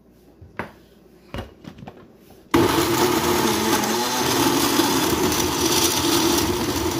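A few light knocks, then about two and a half seconds in a countertop blender switches on abruptly and runs steadily at speed. It is chopping chunks of red and green peppers, scotch bonnets and onion in a little water into a rough blend.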